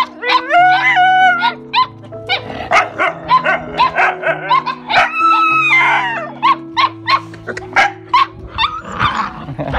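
Several puppies and young dogs yipping and barking in quick short calls, with a couple of longer whines (one about a second in, one about five seconds in), over background music with held low notes.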